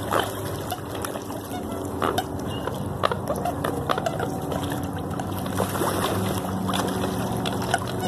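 A flock of American coots and gulls calling and splashing on the water. Short sharp calls and clicks come throughout, over a steady low hum.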